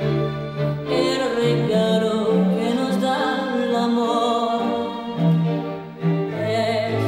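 Music: a voice singing with vibrato over bowed strings, with long held low notes.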